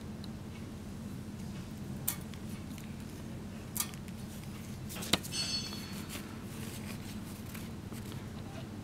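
A few sharp metal clicks and clinks as a turbo exhaust manifold flange is handled, the loudest about five seconds in, followed by a short scraping rattle. A steady low hum runs underneath.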